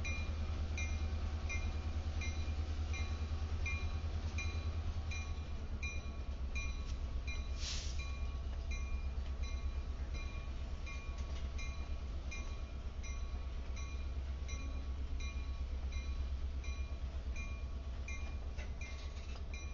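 A slow-moving freight train during switching, with a low steady rumble from the locomotive and rolling cars. A faint regular tick recurs about twice a second, and a brief hiss comes about eight seconds in.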